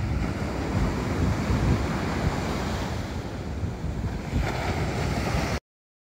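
Ocean surf breaking and washing up a sandy beach, with wind buffeting the microphone. The sound cuts off suddenly near the end.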